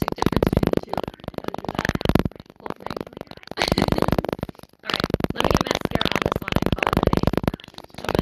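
A woman's voice broken up into a rapid, buzzing stutter, coming in phrases with short gaps, so that the words cannot be made out.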